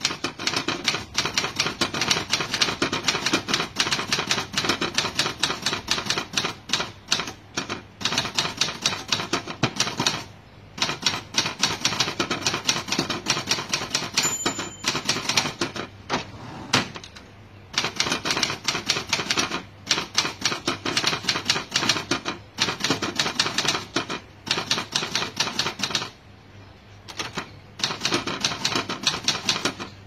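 Fast typing on a manual typewriter, with keys striking in rapid runs broken by short pauses. About halfway through there is a brief ring of the margin bell, and the carriage is returned.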